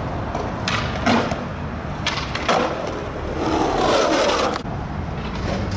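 Skateboard wheels rolling over pavement with a steady rumble. Several sharp clacks of the board come in the first half, and about three and a half seconds in there is a louder scrape lasting about a second.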